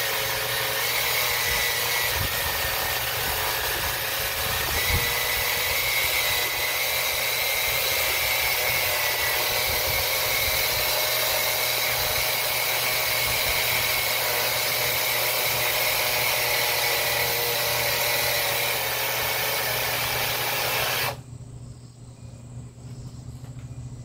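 Small 12-volt electric oil extractor pump, powered from the car battery, running with a steady whine and buzz, then switched off abruptly near the end. Its hoses are on the wrong way round, so it is pushing rather than drawing the oil out of the dipstick tube.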